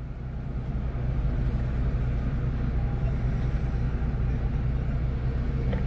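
Motor vehicle engine running with a steady low rumble that swells slightly in the first second and then holds even.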